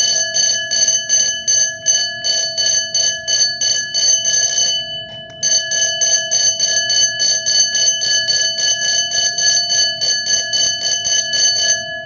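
Amseco electric fire alarm bell ringing, its striker hammering the gong in a fast, even rattle of about five strikes a second over a ringing tone that hangs on. The striking stops briefly about five seconds in and again near the end.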